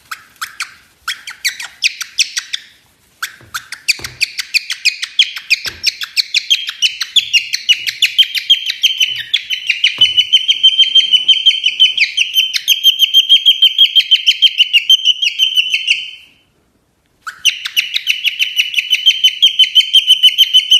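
Cockatiel chirping in a rapid, steady string of short high notes that builds up over the first few seconds, breaks off for about a second near the end, then starts again. A few sharp crackles of the crumpled paper being rubbed come in at the start.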